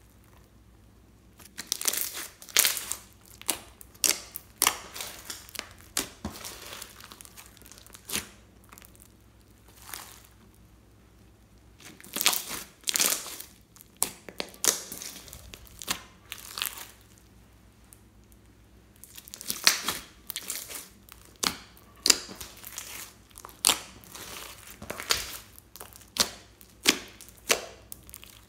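Clear slime packed with plastic beads and glitter being pressed, poked and stretched by hand: clusters of sticky crackling and popping with short pauses between.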